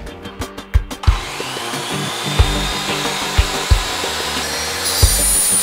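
Bosch GCM 10 MX mitre saw motor switched on about a second in, its whine rising as the blade spins up and then running steady, with a sharper high-pitched sound joining near the end. Background music with a steady beat runs under it.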